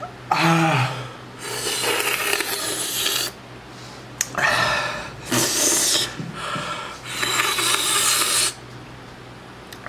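A man's short vocal cry falling in pitch, then three long, hissing breaths blown hard out through the mouth: panting against the burn of a habanero pepper.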